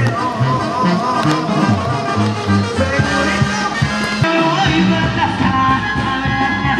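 Latin music playing, with a bass line stepping from note to note under a melody.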